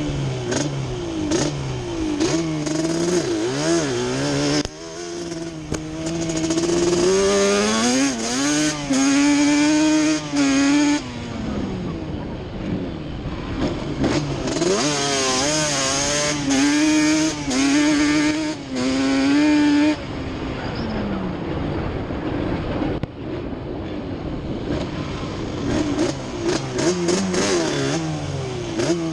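Yamaha Banshee's 350 cc twin-cylinder two-stroke engine revving up and down on a ride, with two long pulls where the pitch climbs and holds high before dropping back. It is running with its carburettor needles reset to the middle clip position, which cured its misfire.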